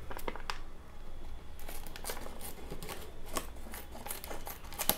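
Product packaging being handled and opened by hand: irregular rustles and small sharp clicks.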